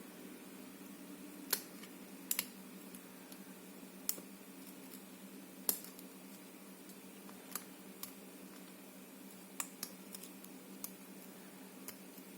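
Small, sharp metallic clicks from a lock pick working the serrated pins of an ABUS 72/40 padlock under tension, about a dozen irregular clicks, over a steady low hum.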